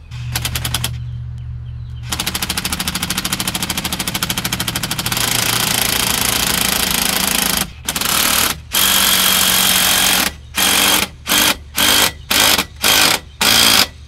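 Power impact driver with a 7/16 socket hammering as it tightens a hose clamp on the intake boot: a long run of rapid, even hammering, then a string of short bursts toward the end.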